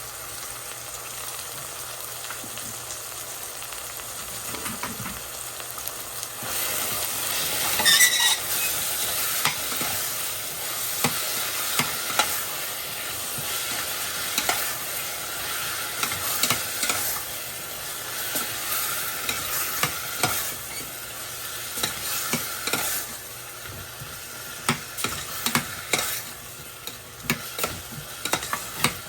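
Food frying in oil in a pan, a steady sizzle that grows louder about six seconds in, while a utensil stirs and scrapes it with repeated clinks against the pan, the sharpest about eight seconds in.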